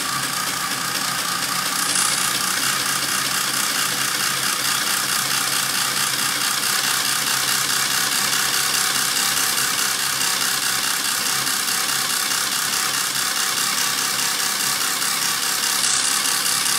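Tractor engine running steadily with a dense, fast mechanical rattle, getting slightly louder about two seconds in.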